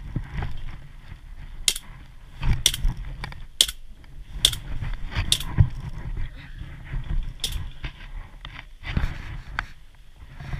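Sharp single snaps of airsoft guns firing, about seven spaced irregularly through the first three-quarters, over a steady low rumble of movement.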